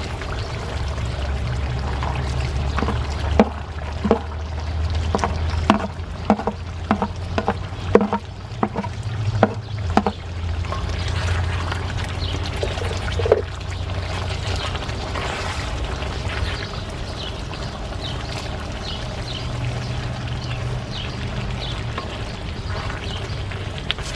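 Wooden spoon stirring a simmering stew in a cast-iron wok. It knocks sharply against the pan again and again for the first ten seconds or so, then gives way to a steady bubbling hiss, over a constant low rumble.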